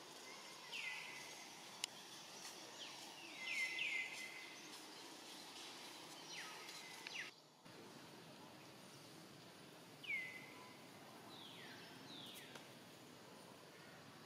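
Outdoor background hiss with a bird giving short, falling chirps every few seconds, a quick cluster of them a few seconds in.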